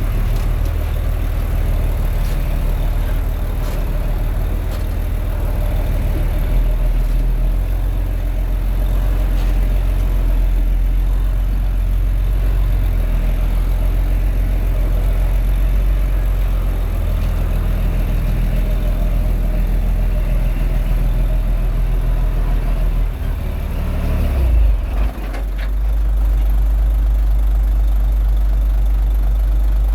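Komatsu D21A bulldozer's diesel engine running with a steady low drone. About three-quarters of the way through, the engine note dips and shifts briefly, then settles into a steady drone again.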